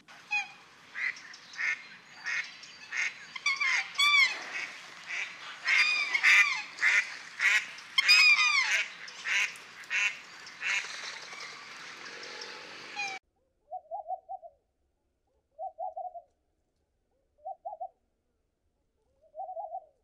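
Pond birds calling loudly over and over, goose-like calls about once or twice a second, several birds overlapping. After a sudden cut, a white dove cooing: four short, low coos about two seconds apart.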